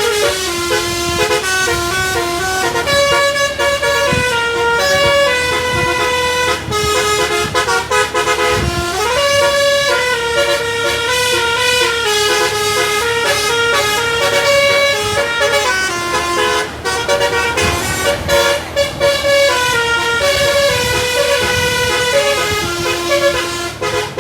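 Tour bus's telolet basuri musical air horn playing a continuous melody of quick stepped notes, with one short rising slide about nine seconds in, stopping right at the end.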